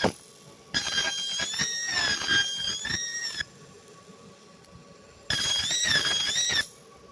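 30 W fiber laser ablating a silicon wafer, giving a loud, shrill, high-pitched whine whose pitch wavers slightly. It comes in two passes: one of about two and a half seconds starting under a second in, and a shorter one of about a second and a half past the five-second mark, with quieter pauses between them.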